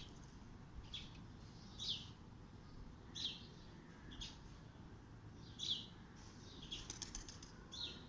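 Small bird chirping: short, high chirps repeated about once a second.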